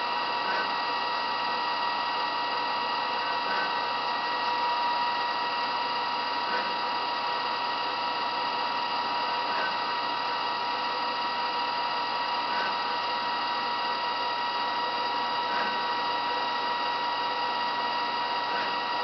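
Haas TL-series CNC lathe running a program with gang tooling: a steady machine whine made of several held tones, with a faint short tone repeating about every three seconds.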